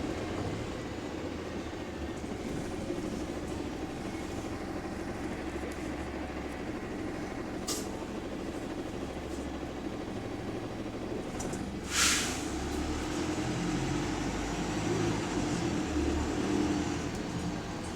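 Bus WS104's engine and running noise heard from on board as a steady low drone. A brief hiss of air comes about eight seconds in, and a louder, sharper burst of compressed air is released about twelve seconds in, typical of the bus's air brake system.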